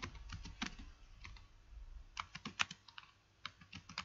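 Computer keyboard being typed on: quick, uneven keystrokes coming in short runs.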